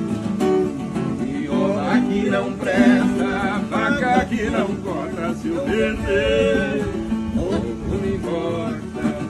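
Viola caipira playing a sertanejo moda, its plucked double-course strings ringing steadily, with a man singing along from about a second and a half in.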